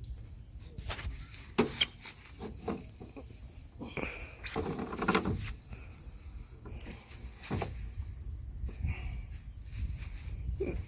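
Scattered sharp metal knocks and a longer rattle near the middle from handling a salvaged truck A/C compressor that is being tried by hand and will not turn. Insects buzz steadily in the background.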